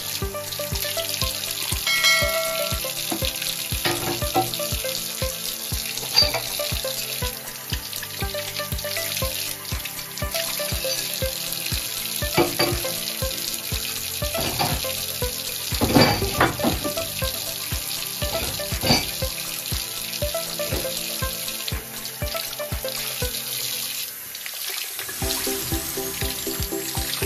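Water running from a newly installed laundry faucet, with background music over it.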